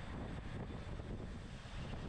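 Wind buffeting the microphone of a camera on a racing bicycle at speed: a steady, low rumbling rush.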